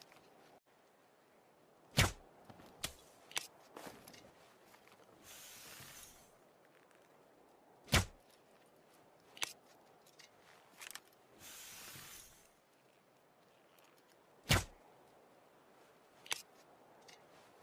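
Compound bow being shot three times, about six seconds apart, each release a sharp loud snap. Smaller clicks fall between the shots, and a short hiss comes a couple of seconds before the second and third.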